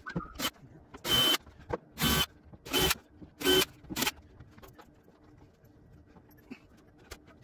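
Cordless impact driver driving screws into an upper cabinet, in four short bursts about a second apart and a brief fifth, each with a high whine over the hammering; afterwards only faint handling ticks.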